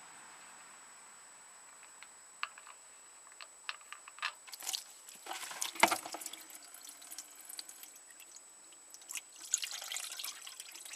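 Engine oil draining from the crankcase and dripping and splattering into a grated drain pan, irregular drips that start about two seconds in and grow busier, loudest about six seconds in. The oil is diluted with gasoline from the engine flooding, a gas and oil mix that smells strongly of gas.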